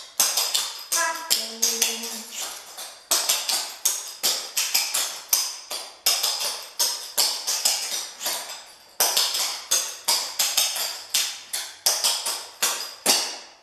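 Clogging taps on shoes striking a concrete floor in a fast, rhythmic run of steps: many sharp, jingling clicks a second with brief breaks between phrases.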